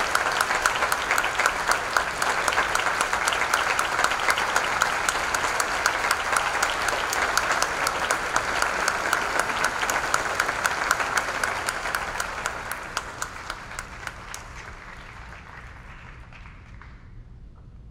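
Audience applauding, dense clapping that thins out and dies away over the last several seconds.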